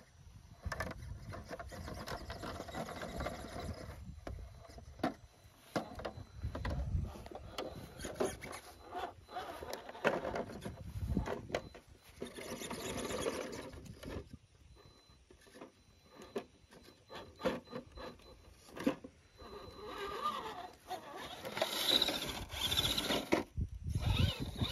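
Electric RC rock crawler working over concrete rubble and bricks: the motor and drivetrain whine in short, irregular bursts, and the tires scrape and the chassis knocks against the rock.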